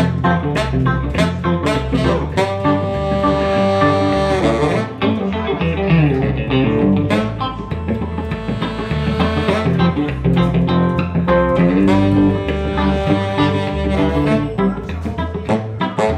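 Live band playing an instrumental break: electric guitar and bass guitar over a steady beat, with a saxophone holding long notes.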